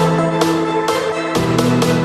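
Background music with sustained instrumental notes and a steady percussive beat. The bass note shifts and the beat gets busier about one and a half seconds in.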